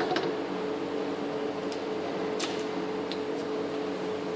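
Mustard seeds spluttering in hot oil in a wok for a tadka, a few scattered sharp pops over a steady hum.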